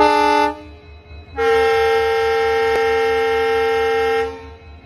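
WDG4 diesel locomotive's air horn sounding a short blast, then after about a second a longer steady blast of about three seconds, several notes sounding together.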